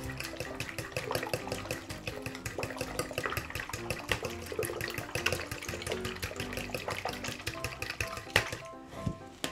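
Fingers stirring a liquid buttermilk and egg marinade in a plastic bowl, the liquid sloshing and splashing in quick small strokes, over quiet background music.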